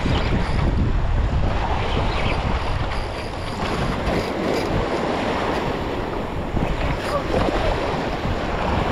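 Surf washing against the jetty with wind rumbling steadily on the microphone.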